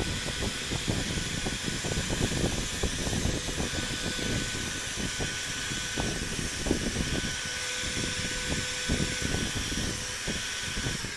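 iBELL HG20-82 2000 W heat gun running, blowing hot air onto a UPVC pipe tee to soften it. It makes a steady rushing hiss with a faint high whine over an uneven low rumble.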